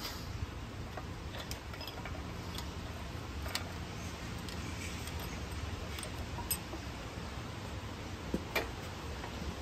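Light metallic clicks and taps from handling a cam bearing installer tool's steel shaft and fittings inside a Ford 302 small-block, a few scattered over a steady low hum, the loudest a close pair near the end.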